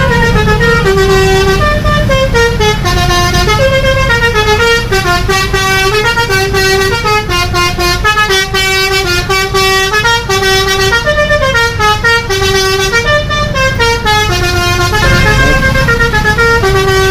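Indonesian bus 'telolet' Basuri multi-tone horn playing a long tune of quickly changing notes, over the low rumble of the bus's engine.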